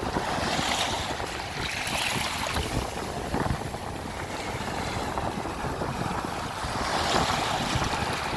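Ocean waves washing in with wind gusting across the microphone. The wash swells twice, about a second in and again near the end.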